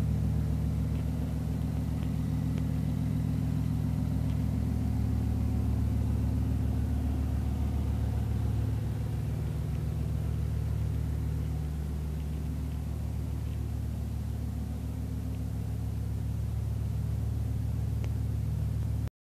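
BMW i8's 1.5-litre turbocharged three-cylinder petrol engine idling steadily, with no revving. The sound cuts off abruptly near the end.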